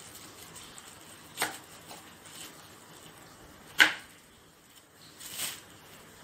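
Kitchen knife cutting an apple into cubes on a cutting board: two sharp knocks of the blade striking the board, about a second and a half in and again near four seconds, the second one the loudest, then a softer, longer cut a little after five seconds.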